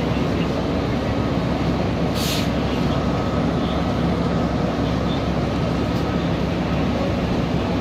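Fire engine's diesel engine running in a steady low rumble, with a faint steady whine over it. A brief hiss comes about two seconds in.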